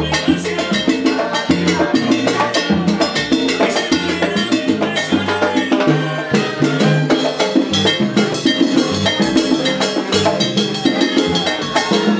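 Live salsa band playing, with drums and percussion strokes driving a steady beat.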